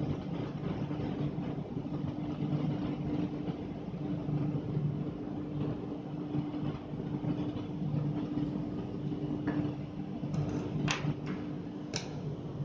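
Steady low mechanical hum with a constant tone, unchanging throughout. A few short, sharp clicks in the last few seconds as a 9V battery and its snap connector are handled.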